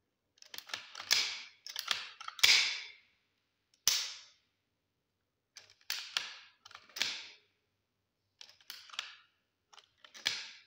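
Type 56 (Chinese AKM-pattern) rifle with its receiver cover off, its bolt carrier worked back against the recoil spring by hand and let run forward: a series of sharp metal clacks and rattles in several bunches, the loudest about two and a half seconds in.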